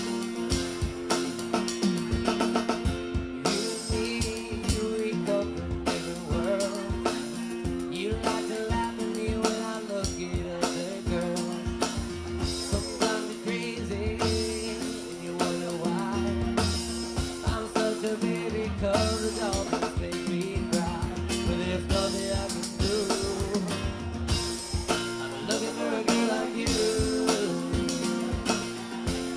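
Live band music: guitar with a steady drum beat played with sticks, and a man's voice singing in places.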